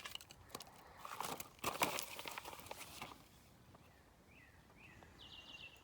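Faint clicking and rustling of small bolt hardware being handled as a washer is fitted onto a bolt, for about three seconds, then quieter. A few short, faint chirps near the end.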